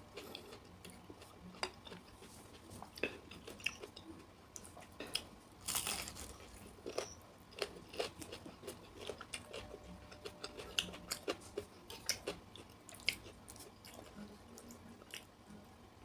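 Close-up chewing and crunching of asinan Betawi, crisp raw vegetables and fruit such as cucumber, cabbage and bean sprouts in a pickling sauce, with irregular crisp crunches a few times a second and a louder cluster about six seconds in.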